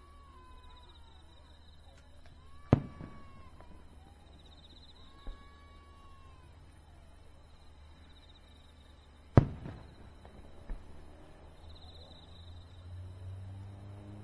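Two aerial firework shells bursting, a sharp bang about three seconds in and a louder one about nine seconds in, each trailing off in echo. Insects chirp steadily underneath.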